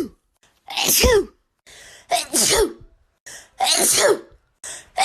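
A woman's allergy sneezes: three sneezes in quick succession, about a second and a half apart, with short breaths drawn between them.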